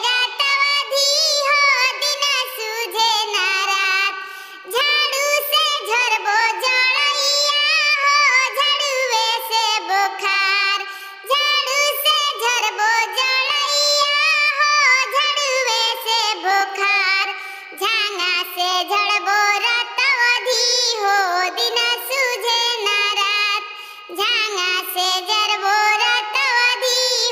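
A high voice singing a Bhojpuri jhumar folk song with music, the melody wavering and ornamented. There are short breaks between phrases about every six seconds.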